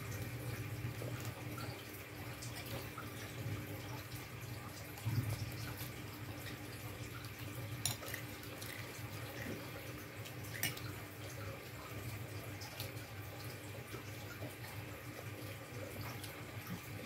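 Quiet eating at a table: a metal spoon clicks against a plate a few times, loudest about eight seconds in, over a steady low background hum.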